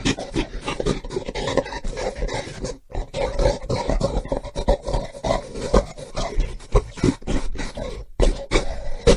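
Gorilla vocalising: rough, dense roaring and grunting made of many short strokes over a low rumble, broken by two brief drop-outs about three and eight seconds in.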